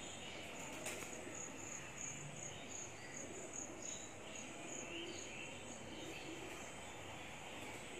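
A high insect chirp pulsing about three times a second over steady outdoor background noise, with a single short sharp sound about a second in.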